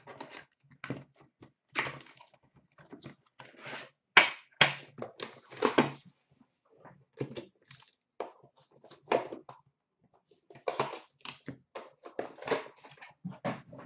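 A sealed hockey card box being unwrapped by hand: irregular crinkling and tearing of plastic wrap and cardboard, mixed with knocks and clicks as its metal tin is pulled out and set down.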